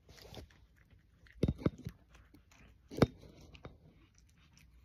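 A domestic cat chewing bread crumbs off a wooden floor close to the microphone: a few sharp clicks and knocks, a cluster about one and a half seconds in and the loudest about three seconds in.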